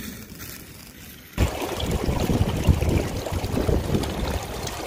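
Water running and splashing over rocks and ice in a small mountain stream, a dense rushing that starts suddenly about a second and a half in.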